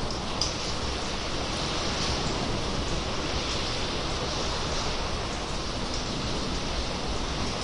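Sea water washing and echoing inside a sea cave, a steady rushing wash, with one sharp drip-like tick about half a second in.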